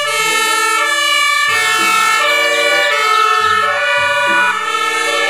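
Fire engine siren sounding continuously, its pitch stepping back and forth between tones.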